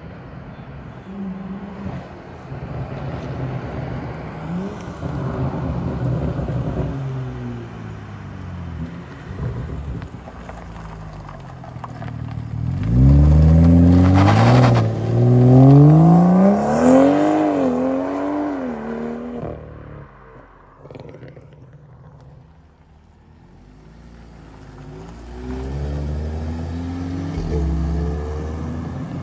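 Cars accelerating away one after another. The loudest is a red BMW 3 Series sedan pulling out hard about halfway through: its revs climb, drop at a gear change and climb again, with a brief sharp burst of noise as it pulls out, then fade away. Near the end another car's engine builds as it approaches.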